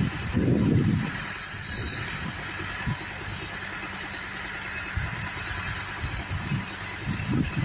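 A machine running steadily, with a short hiss about a second and a half in and a few irregular low thumps.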